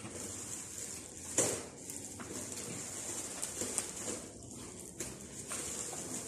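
Small knocks and rustles of a meal at a table, plastic and packaging handled as people eat, with one sharper knock about a second and a half in.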